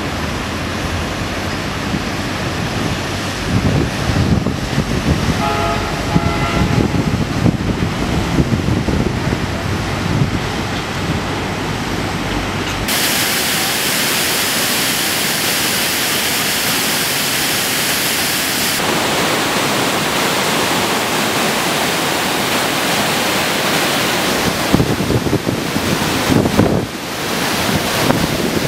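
Wind buffeting the microphone over the rush of churned river water as a sightseeing boat speeds past. About thirteen seconds in this cuts to the steady rushing of a waterfall, with gusts of wind on the microphone near the end.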